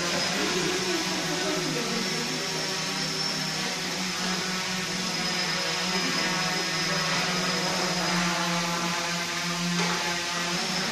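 Quadcopter's electric motors and propellers running steadily as it hovers, a loud whirring hum of many stacked tones with little change in pitch.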